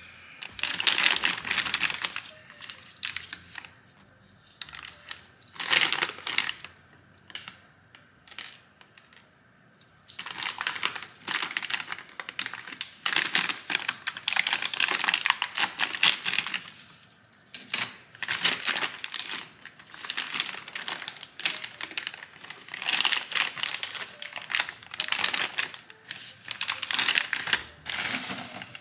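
Plastic packaging crinkling and rustling as parts are pulled out of clear plastic bags and bubble wrap by hand. It comes in irregular bursts, sparse at first and nearly continuous through the second half.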